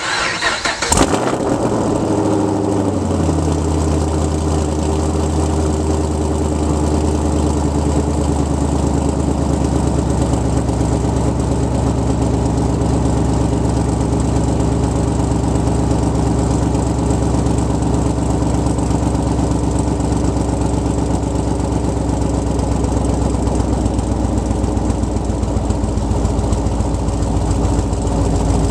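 Chevrolet Camaro SS's 6.2-litre V8, fitted with BBK long-tube headers, high-flow cats and straight pipes with the mufflers deleted, cranking and catching. It flares briefly about a second in, then settles by about three seconds into a steady idle.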